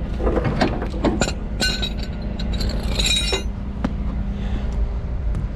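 Metal tow hooks and chain clinking and rattling in two short bursts with a bright ring, about a second and a half in and again about three seconds in, over a rollback tow truck's engine running steadily.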